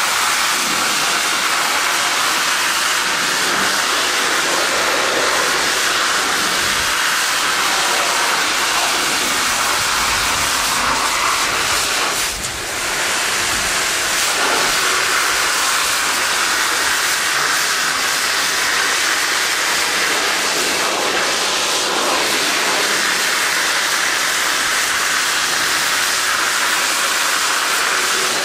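Akron severe-duty water monitor firing a straight high-pressure jet, a steady hiss of water and spray striking a bulldozer, with a brief dip about twelve seconds in.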